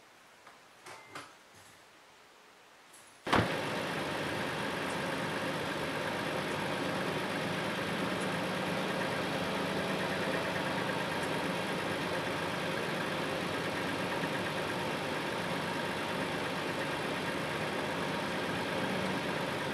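A few faint clicks, then, about three seconds in, a Toyota Tacoma pickup's engine comes in abruptly and idles steadily.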